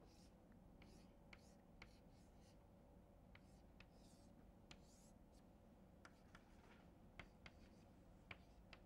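Chalk tapping and scratching on a blackboard while a circuit diagram is drawn: faint short ticks scattered throughout, more frequent in the second half.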